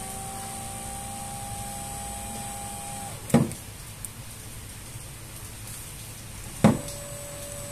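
Small DC gear reduction motor of the car-wiper type running with a steady whine. About three seconds in it stops with a sharp click as a test lead is moved on its connector. A second click about six and a half seconds in sets it running again at a lower pitch.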